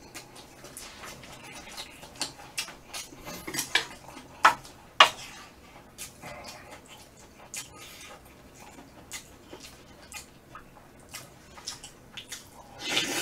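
Wooden chopsticks and a spoon clicking and scraping against a metal serving tray, with two sharper clacks about four and a half and five seconds in.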